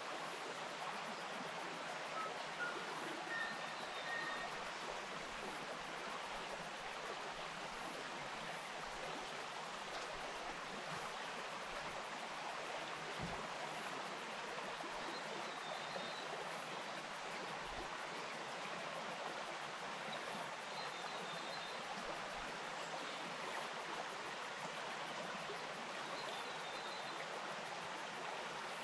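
Wainuitewhara Stream flowing steadily: an even, unbroken rush of water.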